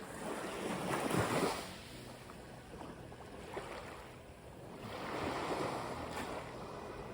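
Mediterranean sea waves breaking and washing up a beach, in two swells: the louder one about a second in, a softer one around five seconds in.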